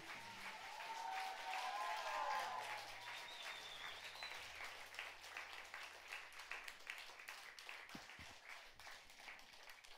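Audience applauding after a song, with a few voices calling out over the clapping in the first three seconds; the applause thins and fades toward the end.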